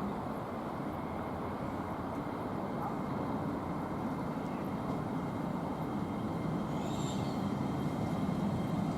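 LNER Class 800 train running slowly into the platform: a steady rumble that grows gradually louder, with a brief faint high squeal about seven seconds in.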